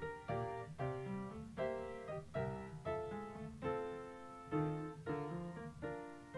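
Background music: a string of struck chords, each one fading away before the next.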